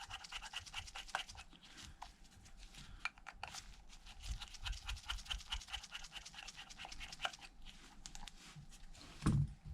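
Faint, rapid clicking and scratching of a precision pentalobe screwdriver backing out the tiny bottom screws of an iPhone X, with a brief louder low sound near the end.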